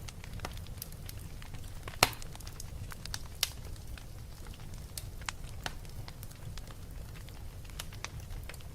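Wood fire burning in a fireplace, crackling with frequent sharp pops, the loudest about two seconds in and another about a second later, over a steady low rumble.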